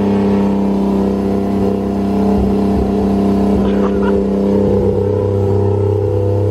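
Built, single-turbo, cammed and straight-piped Toyota 2JZ inline-six in a Mk4 Supra idling steadily, a freshly rebuilt engine on its first run.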